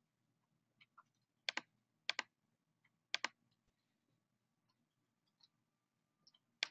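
Four sharp clicks of a computer mouse, each a quick double click of press and release: about one and a half, two and three seconds in, and again at the very end, with near silence between.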